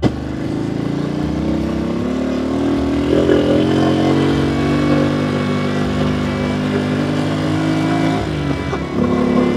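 Motorbike engine running under way, its pitch climbing slowly for about eight seconds, then dropping.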